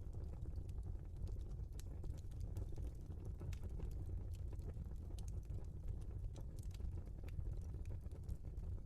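Logs burning in a fireplace, crackling with frequent small sharp pops over a low steady rumble of the flames.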